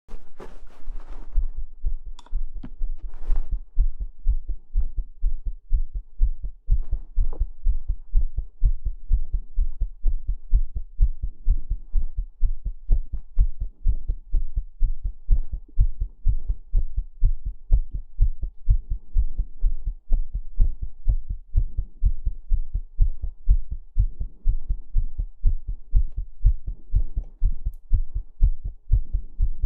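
Heartbeat: a steady rhythm of deep, low thumps repeating evenly throughout.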